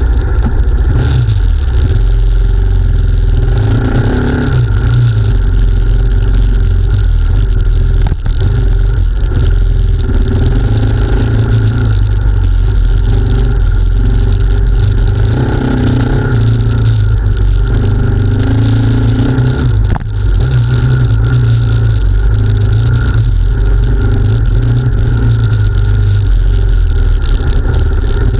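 Off-road motorcycle engine running and revving while riding a dirt track, picked up by a camera mounted on the bike, with a heavy low rumble throughout; the engine note rises and falls with the throttle, and two sharp knocks come through about a third and two thirds of the way in.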